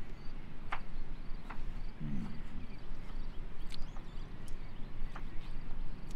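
A man eating a peeled boiled egg: scattered small mouth and chewing clicks over a steady low outdoor rumble, with one short low hum about two seconds in.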